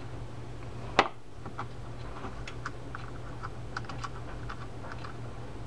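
Light, irregular small metal clicks and ticks from the handle and retaining nut of a Shimano Trinidad 12A reel being turned and threaded on by hand, with one sharper click about a second in.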